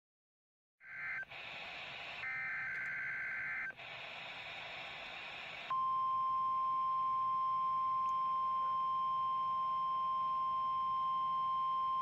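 NOAA Weather Radio broadcast heard through a receiver: static hiss with short bursts of the warbling SAME digital header data, then, about six seconds in, the steady 1050 Hz warning alarm tone comes on loud and holds unbroken. The tone is the weekly test of the weather radio warning alarm.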